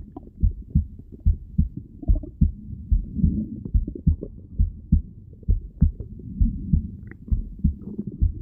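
Heartbeat heard through a stethoscope: a steady rhythm of low, muffled thumps, with faint gurgles in between.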